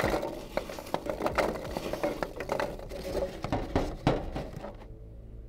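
Packing peanuts pouring from a cardboard box into a glass-walled case, a dense pattering rustle as they fall and pile up. The rustling thins out near the end as hands shift the peanuts while pushing toys in among them.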